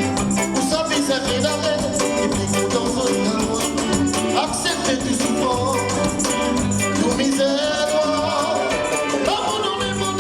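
Upbeat dance music from a band with a singer, over a steady beat.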